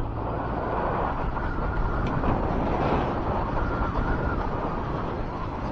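Honda Fireblade motorcycle riding at town speed: steady engine and road noise with wind rushing over the helmet or bike microphone.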